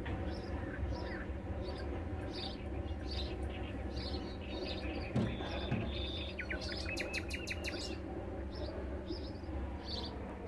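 Nightingale singing: short repeated high notes, a held whistle about five seconds in, then a rapid trill, over a steady low background hum.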